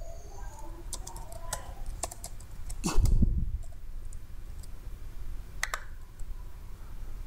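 Computer keyboard keys clicking in short bursts of typing, then a couple of mouse clicks near the end. A dull low thump about three seconds in is the loudest sound.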